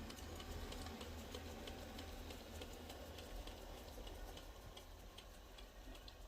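D900 robot vacuum running as it drives itself back to its charging dock: a faint steady hum with a continuous run of light ticks.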